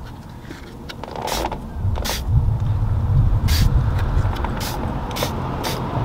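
Trigger spray bottle squirting tyre cleaner onto a tyre sidewall in about six short hissing bursts. Under them, a low rumble sets in about a second and a half in.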